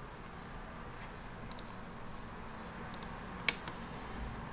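Sharp clicks at a computer: two quick pairs, then a single louder click, over a low steady hum.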